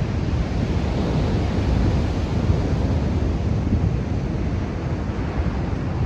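Wind blowing across the microphone: a steady, fluctuating noisy rumble, heaviest in the low end.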